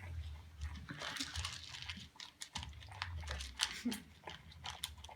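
A dog chewing food: an irregular run of small, quick clicks and crunches.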